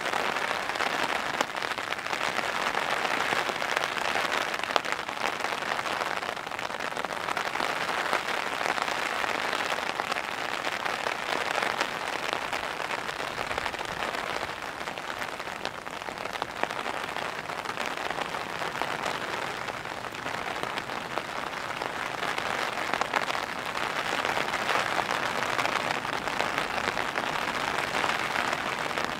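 Heavy rain pouring down, a dense steady patter of drops that swells and eases gently.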